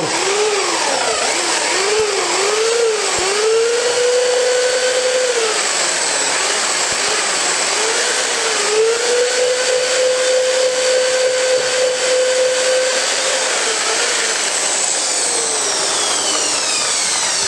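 Corded electric drill with a paddle mixer attachment churning clay mortar in a plastic bucket. The motor whine dips and rises several times at first, holds steady through two long stretches, and slows near the end.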